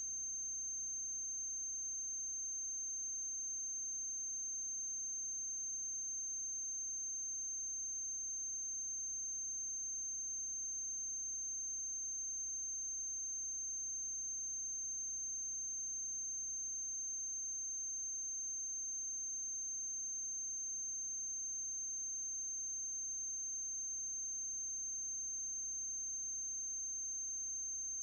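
A steady high-pitched electronic tone with a faint low electrical hum beneath it, unchanging throughout: noise on the transfer of a silent film, with no other sound.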